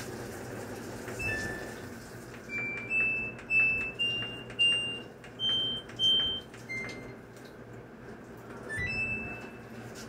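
Samsung top-load washing machine's control panel beeping as its buttons are pressed: a string of short beeps, about two a second, mostly stepping up in pitch, then a short rising chime near the end.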